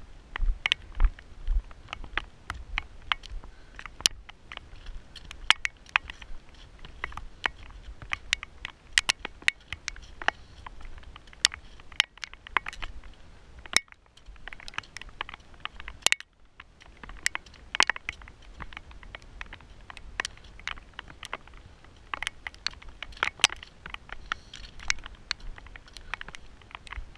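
Footsteps crunching and scraping on loose shale scree, small stones clicking against each other several times a second, with low thumps in the first two seconds.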